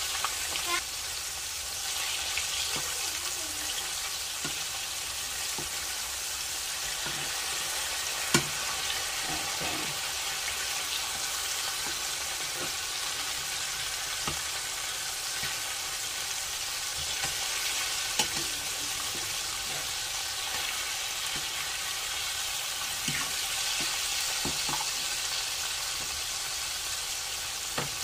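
Flour-dredged pork neck bones sizzling steadily as they shallow-fry in hot oil in a skillet. A few sharp clicks of a metal fork against the pan as the pieces are turned, the loudest about eight and eighteen seconds in.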